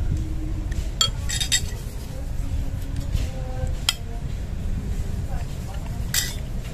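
A metal spoon clinking and scraping against a ceramic plate while eating, a few separate sharp clinks about a second in, around four seconds and near the end, over a steady low rumble.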